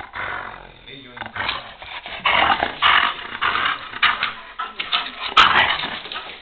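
German shepherd growling in several harsh bursts while tugging at a rubber sandal in tug-of-war play, loudest about five seconds in.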